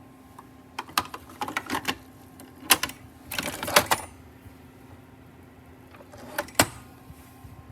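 Light clicks and clattering knocks of objects being handled, in several short clusters, with one sharper knock near the end, over a faint steady hum.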